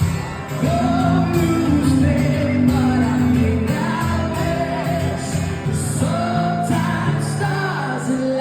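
Live acoustic song: a sung melody of long held notes over strummed acoustic guitar chords, in a large hall.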